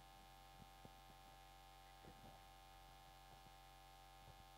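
Near silence: a steady mains hum from the sound system, with a few faint soft knocks.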